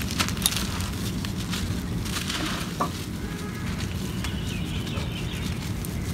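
Dry red dirt lumps crumbled and broken apart by hand: an irregular run of small dry crackles and crunches as the soil breaks and loose grains fall, over a steady low rumble.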